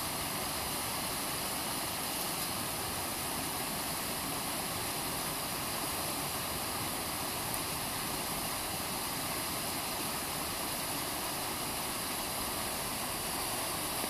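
A small waterfall's white water rushing steadily over rocks in a creek.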